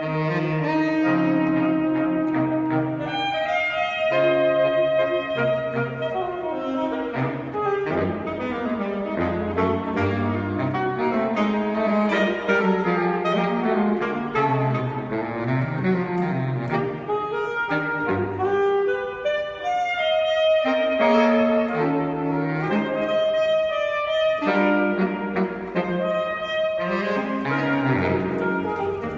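Saxophone quartet playing in harmony, with a moving bass line under the melody.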